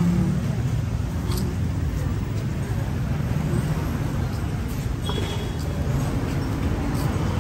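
Steady low rumble of road traffic on a city street, with a brief voice right at the start.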